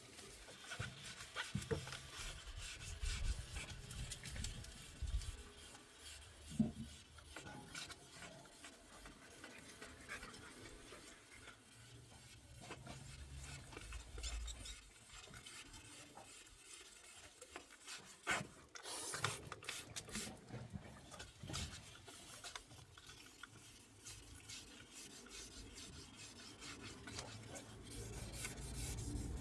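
2500-grit sandpaper wet-sanding car paintwork, with irregular faint rubbing strokes back and forth across the wet panel.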